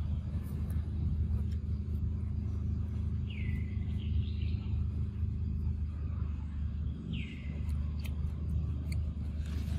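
A steady low rumble, with a bird giving two short falling calls about four seconds apart and a few faint clicks.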